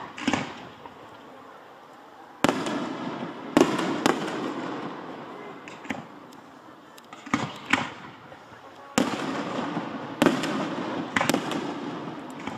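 Aerial firework shells bursting overhead: a string of about ten sharp bangs at irregular intervals of one to two seconds, each trailing off in a long fading echo.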